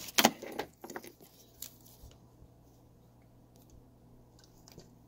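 Handling noise from the camera being propped up: a few sharp clicks and knocks in the first second, then scattered faint taps over a faint low steady hum.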